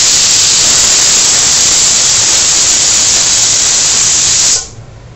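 Loud, steady hiss of noise lasting about four and a half seconds, starting and cutting off abruptly.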